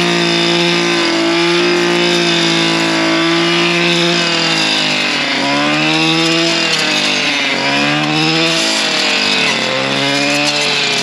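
STIHL FS 240R brush cutter's two-stroke engine running at high revs, spinning a 9-inch chainsaw-tooth blade. In the second half the revs sag and pick up again about three times.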